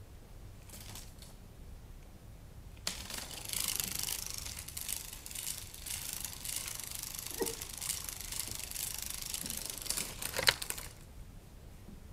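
Moving butterfly cat toy, its wings rustling and crinkling. The sound starts suddenly about three seconds in, runs steadily, and stops shortly before the end, with a sharp click just before it cuts off.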